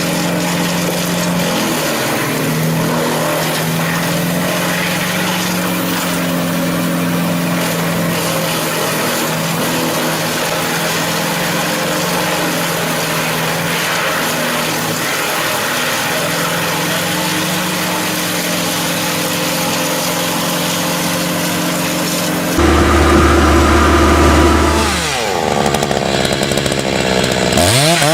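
Chainsaw engine running steadily at high speed. About 22 seconds in the sound switches abruptly to a louder saw whose revs drop and then rise and fall again near the end.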